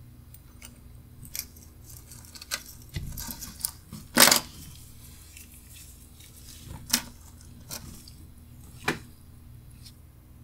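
Light clicks and taps of a wristwatch case and small tools being handled with gloved hands on a bench mat, with one louder rustling scrape about four seconds in.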